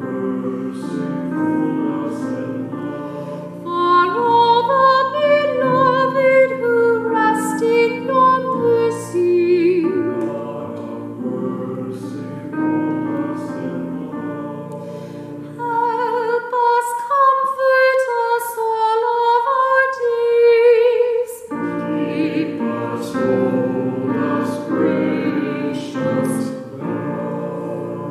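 A woman sings a slow liturgical response with vibrato over sustained keyboard chords. For a few seconds past the middle the accompaniment drops out and the voice carries on alone, then the chords return.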